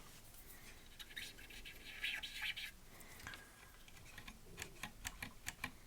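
Commodore 1541-II floppy drive mechanism, its spindle freshly lubricated, making only faint scratching and a few light clicks near the end. There is no screech: the lubrication has cured the squeal.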